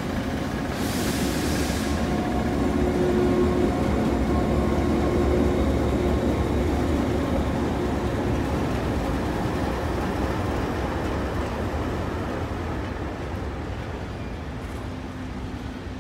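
Heritage diesel-electric locomotives 4201 and 4490 running as they pull slowly past, their engine drone loudest a few seconds in, then fading as the carriages roll by. A brief hiss sounds about a second in.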